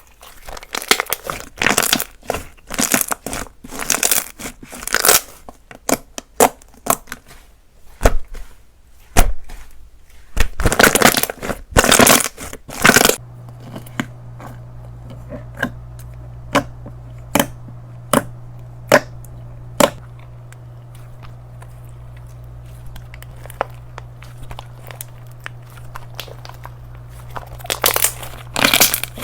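Slime being played with by hand: dense crackling and crunching for the first dozen or so seconds, then single sharp pops and clicks about once a second over a low steady hum, and crackling again near the end.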